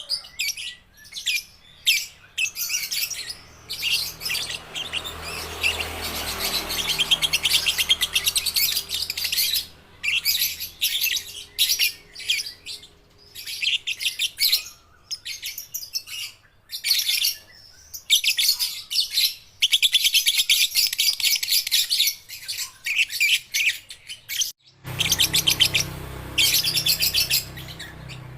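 Young lovebirds chattering: long runs of rapid, shrill, stuttering trills, broken by short pauses and by a brief break a few seconds before the end.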